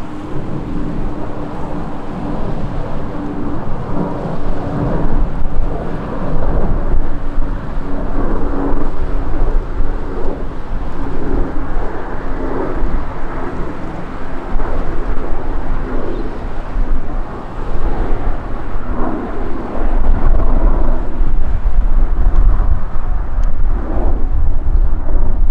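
Airbus A321-231's IAE V2500 jet engines rumbling as it climbs out after takeoff, with a steady engine tone that slowly drops in pitch over the first half. Wind buffets the microphone, growing heavier near the end.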